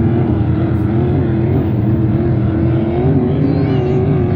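A powerboat engine running steadily at speed, its pitch wavering slightly.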